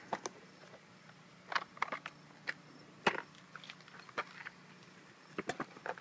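Scattered light clicks and knocks from handling a paintball marker and a clear plastic parts box: about a dozen short taps, the sharpest about three seconds in and a quick cluster near the end.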